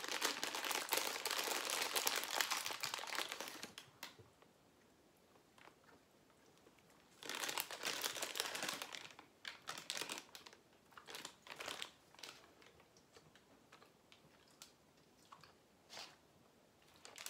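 Plastic candy bag crinkling as it is torn open and handled for about four seconds, then quiet, then a second spell of crinkling a few seconds later, followed by a few small scattered crinkles.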